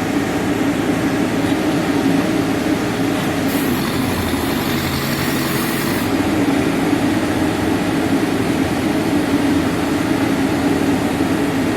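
Backhoe loader's diesel engine running steadily under load, with a hiss from about three and a half seconds in lasting a couple of seconds.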